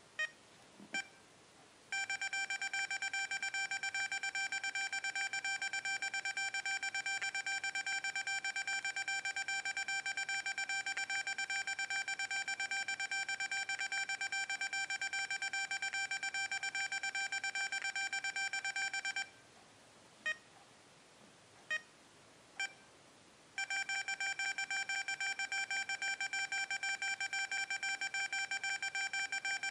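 XP Deus metal detector sounding a steady electronic tone for most of the time. It stops about two-thirds of the way through, a few short beeps follow, and then it resumes.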